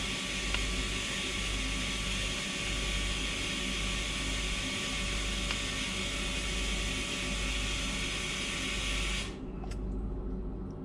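A John Deere diesel marine generator of 70 kW running steadily at operating warmth, a constant mechanical hum with several held tones, while oil is drawn from its dipstick tube by hand vacuum pump. About nine seconds in, the higher part of the noise cuts off abruptly, leaving a lower hum and a few light clicks.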